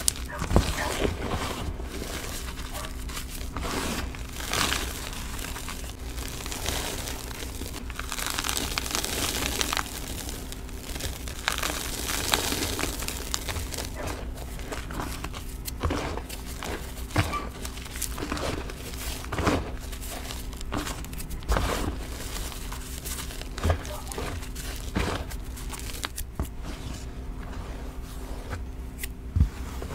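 Gloved hands crushing gym chalk in a bin: soft crunches and crumbling as chunks break apart, then dry powdery swishing and pressing as the loose chalk is spread flat, with scattered sharper taps.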